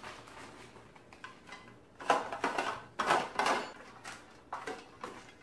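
Plastic bag of shredded coleslaw crinkling and rustling as it is handled and shaken out over bowls. Two louder bursts of rustling come about two and three seconds in.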